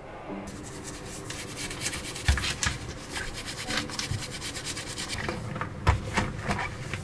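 Rapid, repeated scrubbing strokes against a hard surface, with two dull knocks about two and six seconds in.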